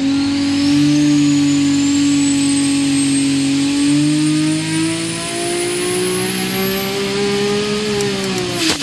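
Turbocharged 3.5-litre Dart-block 2JZ straight-six with a Precision 8685 turbo making a full-load pull on an engine dyno. The engine note climbs steadily with the revs, while a high turbo whine rises with it. Near the end the pull stops with a sharp crack, and the engine and turbo pitch both drop.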